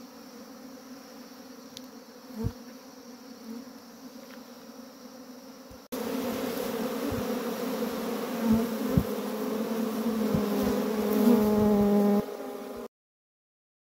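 Swarm of honeybees (Apis mellifera) buzzing as they settle into a wooden hive box. About six seconds in, the sound cuts to a much louder, closer buzz with single bees droning near the microphone and a few sharp knocks. It stops abruptly near the end.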